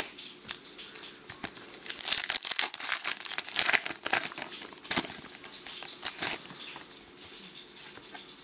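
Trading-card pack being handled by hand: the wrapper crinkles and the cards are shuffled. The rustling is loudest about two to four seconds in, with a few short sharp snaps.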